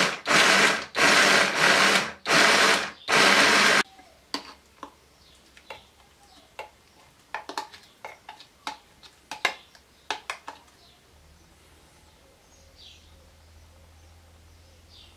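Electric mini food chopper run in four short pulses, its blade chopping tomato, onion and parsley into a paste. After it stops, a metal spoon clinks and scrapes against the chopper's plastic bowl and the glass bowl as the mixture is scooped out.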